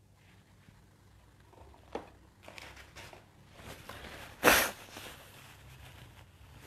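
Quiet handling of small cosmetic containers, with a click about two seconds in. About four and a half seconds in comes one short, loud rush of breath-like noise, while the product is held up to the face.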